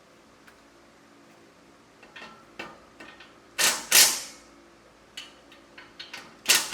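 Small metal clicks and handling noises from fitting exhaust parts and hardware, with three short loud bursts: two close together a little past the middle and one near the end.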